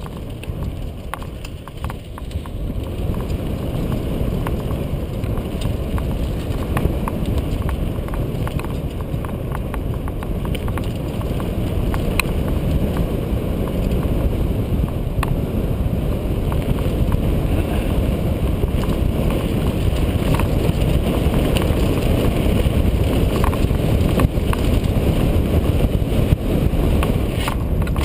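Wind buffeting the microphone and the rumble of mountain-bike tyres rolling fast over a dirt singletrack, growing louder about two seconds in, with scattered sharp clicks from the bike over the rough ground.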